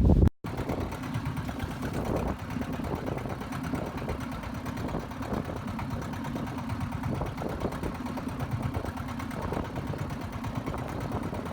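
Boat engine running steadily at low speed, with an even, fast rapid pulse. Loud wind noise cuts off abruptly right at the start before the engine sound comes in.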